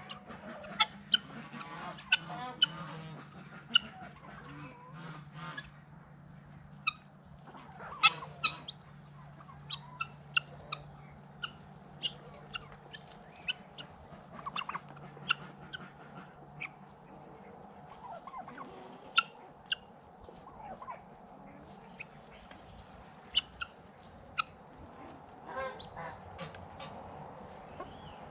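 Backyard flock of chickens and ducks feeding, with frequent short sharp ticks of beaks pecking at scattered feed and a few brief calls now and then, over a steady low hum.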